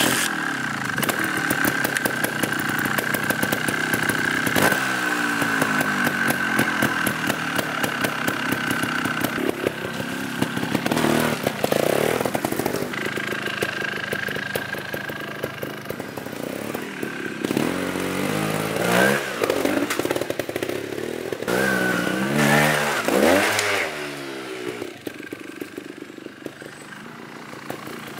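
Trials motorcycle engine running as the bike is ridden over dirt mounds, the revs rising and falling several times in the second half.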